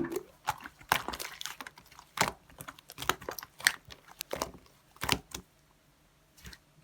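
Clear slime being handled by hand, giving irregular sticky clicks and crackles as it is pressed and pulled, with a quieter stretch near the end.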